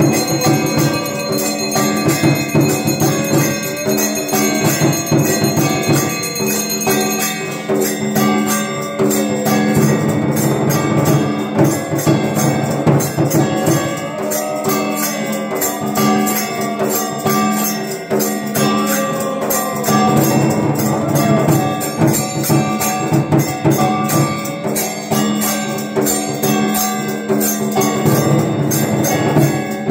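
Evening arati music: hand bells and other struck metal ringing rapidly and without pause in a steady rhythm, over a low drone, with a melody winding above it.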